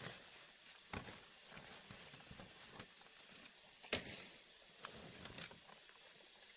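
Large banana leaves rustling and crackling as they are handled and pressed against bamboo poles, with a few sharp snaps, the loudest about four seconds in.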